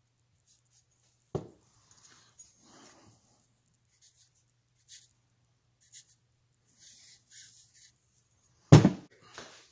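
Metal engine parts being handled and pulled apart on a workbench: a sharp knock about a second in, scattered light clicks and rubbing, then a loud clunk near the end.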